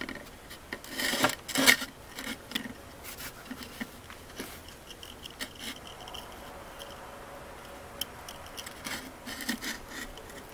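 Small screwdriver scraping and prying inside a GM ignition module's plastic housing, with light clicks and rubbing as foil and silicone gel are pried up off the circuit board. Busiest in the first couple of seconds, quieter in the middle, with more clicks near the end.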